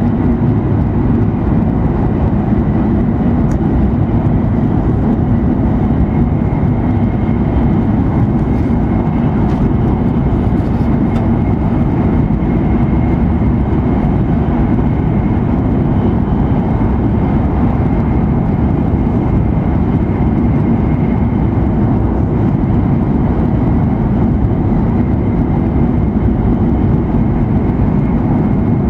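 Cabin noise inside an E7 series Shinkansen running at high speed: a loud, steady rumble with a faint, steady high tone above it.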